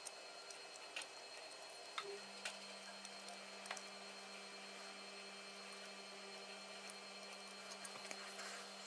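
Faint, irregular light clicks and taps as a needle-tip soldering iron works on a graphics card's small surface-mount parts, over a low steady hum that comes in about two seconds in.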